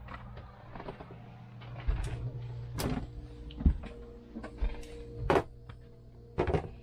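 Handling knocks and bumps of a handheld camera being carried through a boat cabin, with several sharp knocks, the loudest about three, five and six and a half seconds in, over a low steady hum.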